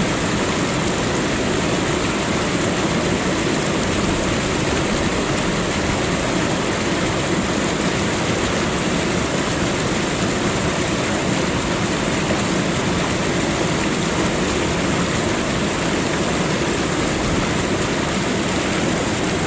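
Water fountain running: a steady, unbroken rush of falling and splashing water.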